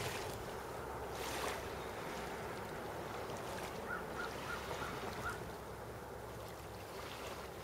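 Small waves lapping steadily along a lake shore, mixed with wind, with a couple of brief louder gusts in the first second and a half.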